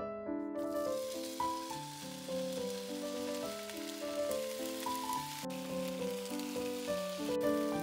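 Bacon sizzling in a hot frying pan as the strips are laid in, the sizzle starting about half a second in. Piano music plays along.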